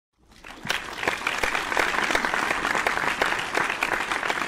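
Crowd applause, many hands clapping at once, fading in over the first half-second and then holding steady.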